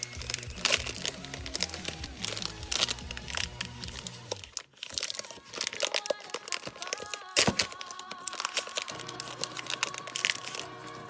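Crinkling and crackling handling sounds of slime being unboxed, many small sharp crackles, over background music whose bass drops out for a few seconds about halfway through.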